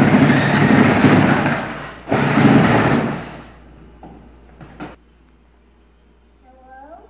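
Power Wheels Ford F-150 12-volt ride-on truck driving: its electric drive motors run and its hard plastic wheels rumble on a concrete floor, in two runs with a brief pause about two seconds in, stopping about three and a half seconds in. A single click follows near five seconds.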